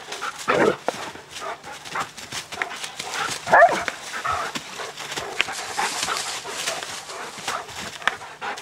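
German shepherds barking and yelping while leaping for a toy, with the loudest calls about half a second in and about three and a half seconds in. Between the calls there is a crackle of paws scuffling in dry leaves.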